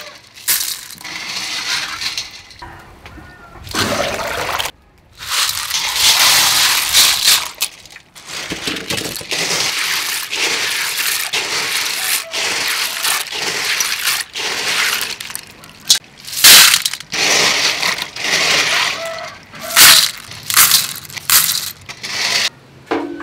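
Handfuls of tiny sea snails being scrubbed together by hand in a steel bowl of water. The hard shells clatter and clink against each other and the bowl, with water sloshing and irregular sharp clicks.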